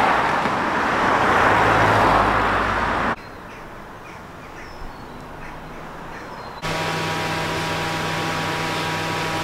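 A car passing close by on a road, a loud rush of tyre and engine noise for about three seconds that cuts off abruptly. Then quieter outdoor ambience with a few faint high chirps, and from about seven seconds in a steady hum with several steady tones.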